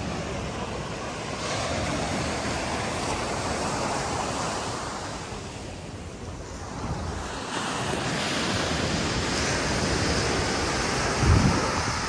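Surf washing onto a sandy beach. Waves swell and recede, with a lull about halfway through, and wind buffets the microphone. A short, low thump near the end is the loudest moment.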